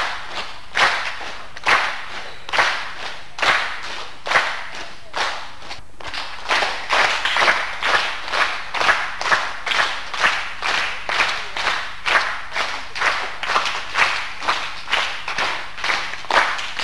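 A group of children clapping together in a steady rhythm, at first about once a second, then quicker, about twice a second, from about six seconds in.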